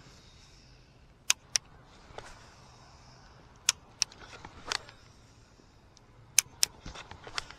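Scattered sharp clicks and light taps from handling a fishing rod and spinning reel, about eight at irregular intervals, over a faint hiss.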